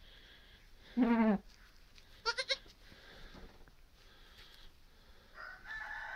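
Goats bleating: a newborn kid and its mother doe. A short, low bleat comes about a second in, then a higher, quavering bleat about a second later.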